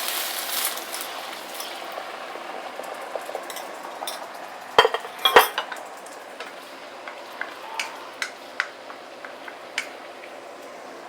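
Chicken stock hitting a hot wok of chicken and tomato sauce: a hiss and sizzle, strongest in the first second, settling to a lower steady bubbling. A utensil knocks sharply against the wok twice about five seconds in, with lighter clinks after.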